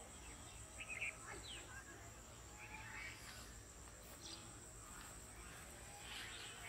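Quiet pond-side ambience: a steady high insect drone with scattered short bird chirps every second or two.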